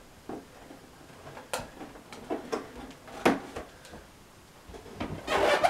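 Cardboard box being handled and cut open with a box cutter: scattered light taps and clicks on the cardboard, then a louder half-second scrape near the end.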